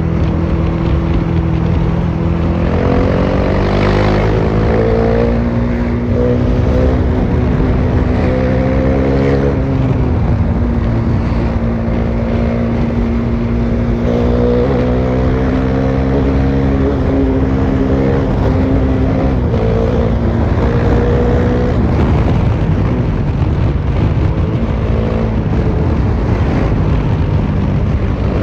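Bajaj Dominar 400's single-cylinder engine running through an open exhaust with the muffler removed, at highway speed. Its note climbs in pitch and drops back several times as the bike accelerates and shifts gears, over a steady rush of wind.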